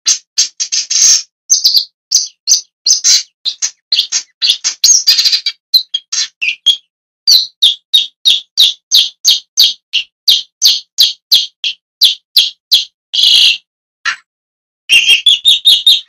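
Shrike calling: a long run of short, sharp notes, about two or three a second, with a longer, harsher call about thirteen seconds in and a quick burst of notes just before the end.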